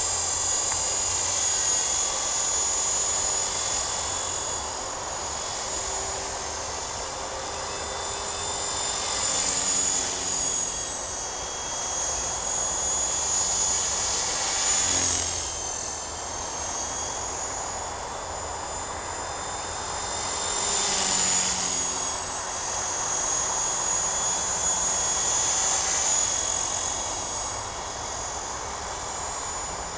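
Sonix SX 450 SE radio-controlled model helicopter in flight: a steady high-pitched whine of motor and rotor, swelling and bending in pitch as it passes close, about a third and two-thirds of the way through.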